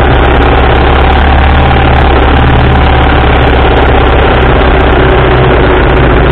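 1987 BMW R80RT's air-cooled boxer twin running steadily at low road speed, heard close up from the engine bar, with wind noise over it.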